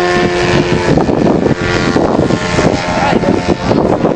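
Engine and propeller of a radio-controlled flying lawnmower model aircraft in flight, a steady pitched buzz. About a second in it becomes partly covered by a rushing noise.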